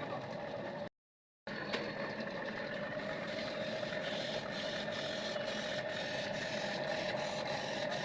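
A machine running steadily with a constant hum. The sound drops out for about half a second around one second in, and from about three seconds in a string of light ticks, a few a second, sits over the hum.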